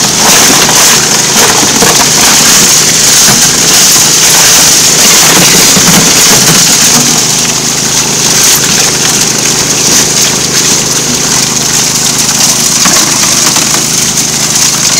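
Water and gravel rushing and rattling through a gold sluice, fed by a small gas-powered pump engine running steadily. The flow is a continuous hiss with constant crackling.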